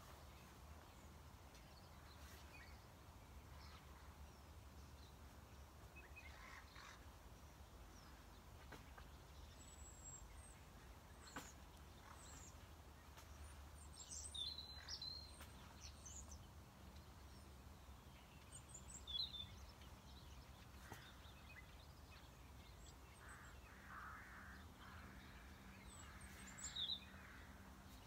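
Near silence outdoors: a faint low background hum with a few short, high bird chirps scattered through.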